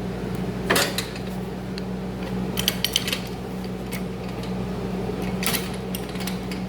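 Scattered metallic clinks and clanks from a floor jack and safety stand as a riding lawn mower's front end is lowered onto the stand, over a steady low hum.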